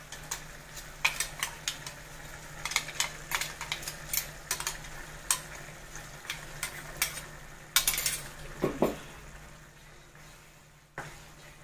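A metal spoon repeatedly clinking and scraping against a small steel pot as thick ground coconut paste is scooped out into the curry, over a faint sizzle of the simmering curry. The clinks thin out after about eight seconds, when the paste is stirred in with a spatula.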